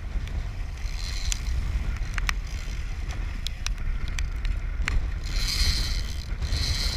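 Wind rumbling on the microphone of a camera on a boat's stern in rough seas, over the rush of the boat's wake, with scattered sharp ticks and two louder hissing rushes near the end.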